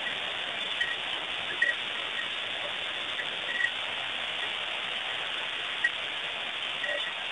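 Heavy rain falling in a steady hiss during a thunderstorm, with a few short high chirps over it.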